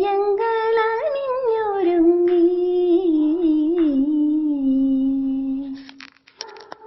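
A woman's singing voice holding the long closing notes of a Malayalam Onam song, the melody sliding up and down, with little or no accompaniment; it fades away about six seconds in.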